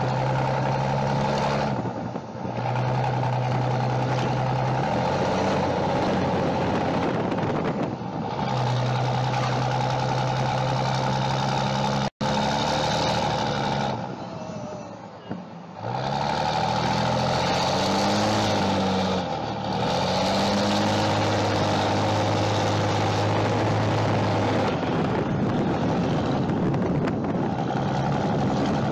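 Diesel truck engine running hard under heavy throttle, dumping excess fuel to roll coal. Its steady drone drops away briefly a few times and climbs back up in pitch as the throttle comes back on.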